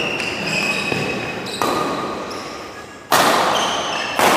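Badminton rally: sharp racket strikes on the shuttlecock, the two loudest about three and four seconds in, echoing in a large hall, with shoes squeaking on the court mat.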